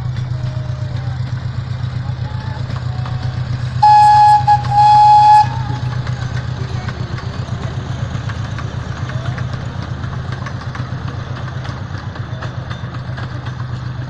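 Miniature park train's replica steam locomotive running past with its engine droning steadily, its whistle giving two loud toots about four seconds in.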